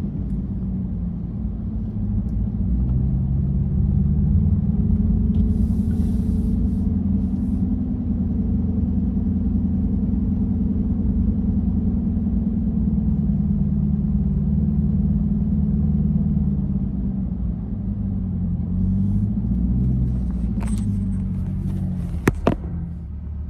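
Car engine running steadily at low speed, its note rising and falling gently as it moves. A few sharp clicks come near the end.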